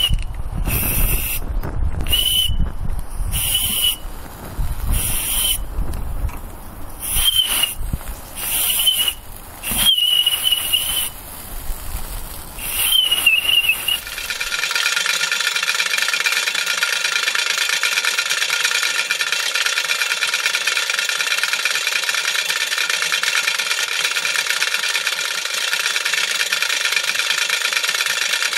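Brass safety valve on a RETROL SE-02 model steam engine's boiler blowing off in repeated short blasts of hissing steam, each with a whistling tone. About halfway through this gives way to a steady, even running sound with no low end.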